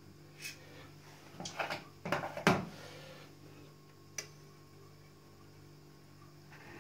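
Light knocks and scrapes of a long flat knife working whipped cream onto the sides of a cake on its foil cake board, the loudest knock about two and a half seconds in and a single sharp click a little after four seconds, over a faint steady hum.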